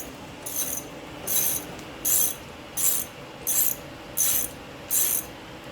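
Socket ratchet wrench clicking in repeated strokes, about seven pulls roughly three-quarters of a second apart, as a bottom engine-mounting bolt is drawn in tight.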